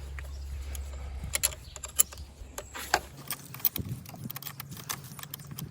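Light metallic clicks and taps of a 10 mm spanner loosening the clamp nut on a car battery terminal, with a low hum under it that stops about three seconds in.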